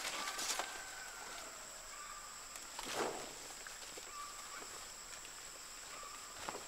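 Quiet rural ambience: a few short, faint bird calls over a steady high whine, with one soft rustling thud about three seconds in from hands working a banana plant into loose dug soil.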